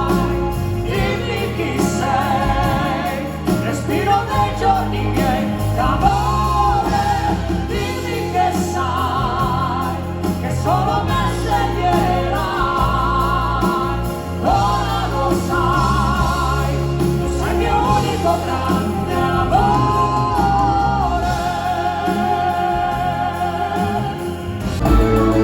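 Live stage singing over backing music, long sung notes with a wide vibrato, from a musical-theatre performance.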